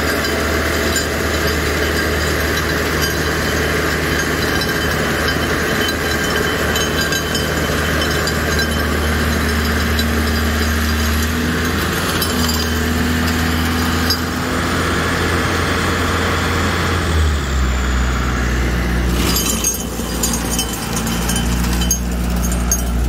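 Tractor engine running steadily under load while driving a Seppi rotary tiller that grinds hard-packed gravel on a road bed, with stones rattling through the rotor. The engine note drops lower about three-quarters of the way through.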